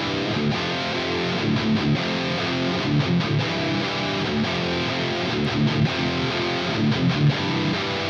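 Les Paul electric guitar played through a Bogner Snorkler 50 amp head, riffing on picked notes and strummed chords.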